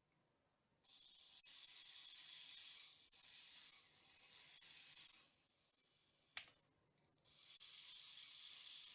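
Small motor of an ATuMan E3 electric precision screwdriver running on its A setting, slow but torquey, with a thin high hiss-like whine. It makes two runs, one of about four seconds and then a shorter one near the end, with a sharp click between them.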